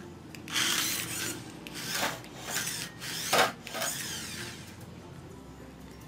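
Veva Toys 1:24 remote-control toy car's small electric motor and gears whirring in several short bursts as it is driven from the transmitter, some bursts winding down in pitch as the throttle is let off.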